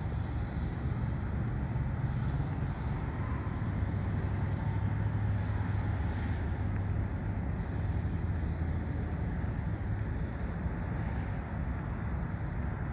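Engine running steadily, a low even hum with no clear revving or gear changes.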